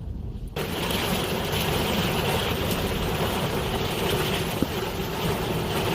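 Dust-storm wind rushing against a car, a loud steady hiss over a low rumble that starts abruptly about half a second in.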